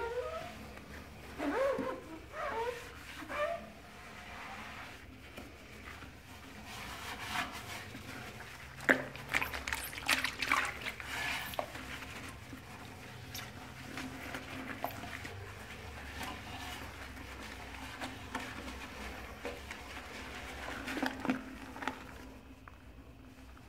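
Rubber-gloved hand scrubbing a porcelain toilet bowl, with short squeaks in the first few seconds. About nine seconds in come a few sharp clicks, then the toilet flushes and water rushes and swirls through the bowl for several seconds before scrubbing resumes near the end.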